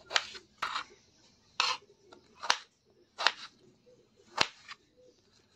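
Kitchen knife dicing a tomato on a cutting board: about six separate cuts, each a brief slicing sound ending in a sharp tap of the blade on the board.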